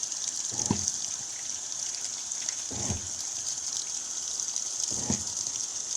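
Washing machine filling at the start of its cycle: a steady hiss of water running in, with a short low swish about every two seconds.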